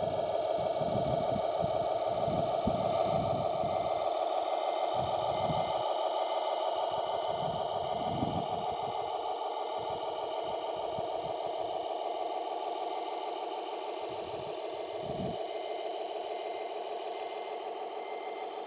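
Radio-controlled model vehicle's electric drive whining steadily at an even pitch, with low rumbles coming and going underneath, mostly in the first half.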